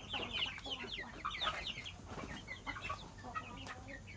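A flock of chickens clucking and calling while they feed, many short high calls overlapping, busiest in the first two seconds and thinner after.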